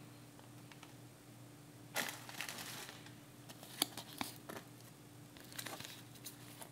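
Plastic packaging of fly-tying materials crinkling and rustling as it is handled, in a burst about two seconds in and again near the end, with a few sharp crackles in between.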